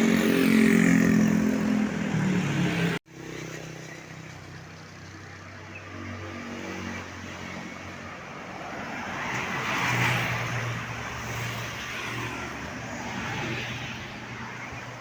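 Tour bus running loud and close for about three seconds, cut off suddenly, then quieter road traffic with a vehicle passing about ten seconds in.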